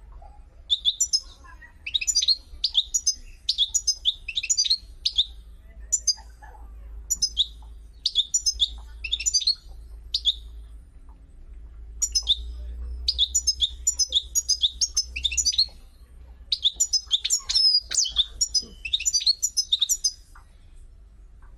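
A small bird chirping in rapid runs of short, high notes, each run lasting a second or two with brief pauses between.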